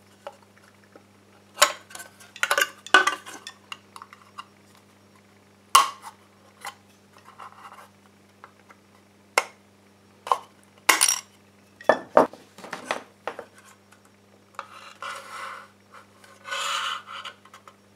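Plastic dry lining electrical box being cut with a Stanley knife to open a knockout and handled: scattered sharp clicks and knocks of hard plastic, with longer scraping stretches near the end.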